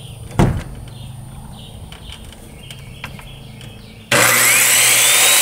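A sharp knock about half a second in, then a corded circular saw starts abruptly about four seconds in, its whine climbing as the motor spins up, and cuts into the wooden wall siding.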